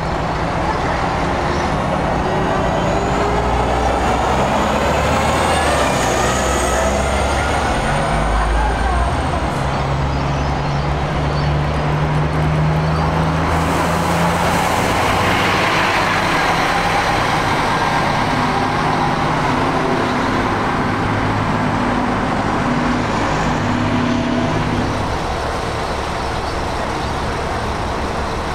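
Diesel buses running and pulling away, their engine note shifting as they move, with a rising whine a few seconds in and a burst of air-brake hiss about halfway through.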